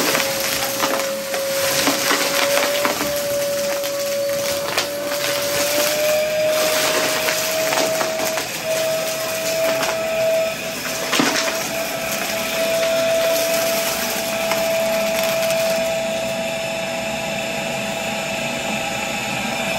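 Vacmaster vacuum cleaner running with a steady whine that rises a little in pitch several seconds in, with scattered crackles as it sucks up crunchy debris under a rug.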